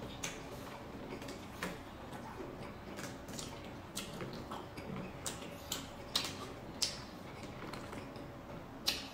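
Close-up chewing of a mouthful of pancit miki noodles with squid: irregular wet mouth clicks and smacks, one sharper click near the end.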